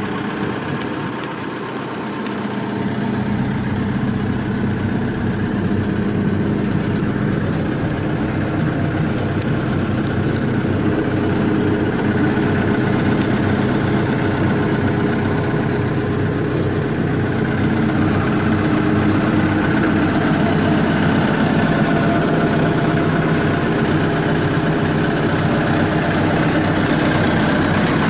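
1995 CAT 436B backhoe's diesel engine running steadily. It dips briefly in level about two seconds in, and a few faint sharp clicks come through around the middle.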